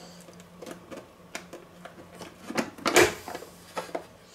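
Hand-operated plastic vegetable dicer at work: its hinged lid is pressed down to push Lyoner sausage through the blade grid, then lifted again. This gives a series of plastic clicks and knocks, the loudest clack about three seconds in.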